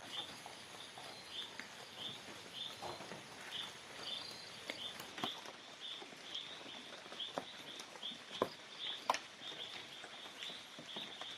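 Forest ambience: a small creature, bird or insect, repeats a short high chirp about twice a second, with scattered sharp clicks and snaps, two louder ones near the end.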